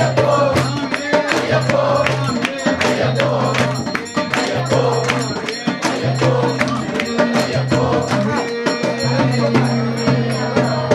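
Devotional music: a voice singing over a steady beat of jingling percussion, with a low note pulsing about once a second.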